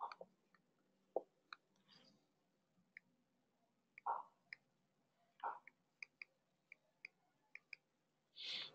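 Near silence broken by faint, scattered clicks and ticks, with a short hiss near the end.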